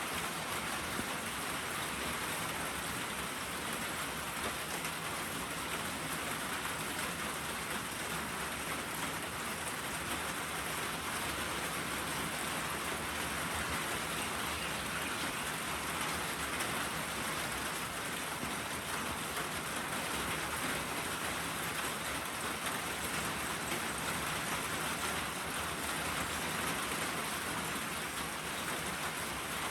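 Steady, even hiss of water, unbroken and without distinct drops or splashes.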